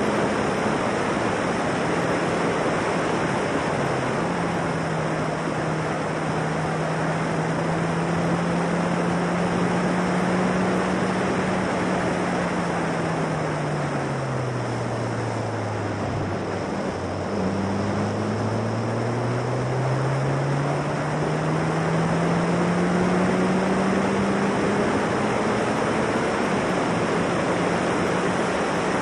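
The 1.6-litre Ford Duratec four-cylinder engine of a Formula Silverstone single-seater, heard from the open cockpit under heavy wind rush. It holds a steady note, falls in pitch for a few seconds about halfway through as the car slows, then climbs again as it accelerates away.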